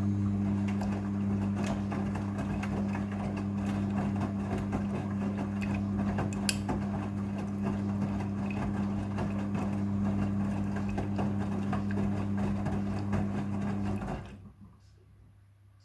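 Midea front-loading washing machine humming steadily with water rushing through it during the rinse cycle, then cutting off suddenly about fourteen seconds in.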